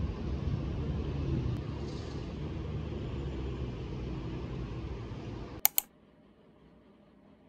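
Steady low rumble of distant city traffic heard outdoors. It cuts off after about five and a half seconds with two sharp clicks, leaving near-silent room tone.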